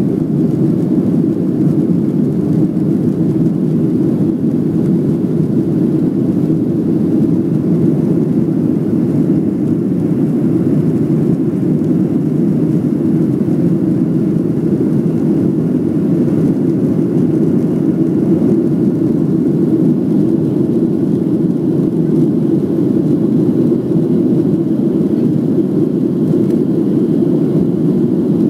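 Cabin noise inside a Boeing 737-700 climbing just after take-off: the steady, low, even rush of its CFM56-7B turbofan engines and the air streaming past the fuselage, heard from a seat over the wing.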